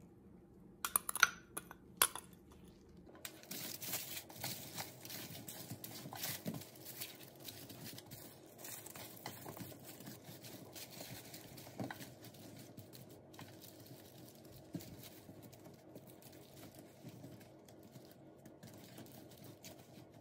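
Aluminium foil lining a baking tray crinkling and rustling as gloved hands toss sliced potatoes, peppers and zucchini in a sauce. A few sharp clicks come about a second in, before the steady rustling starts.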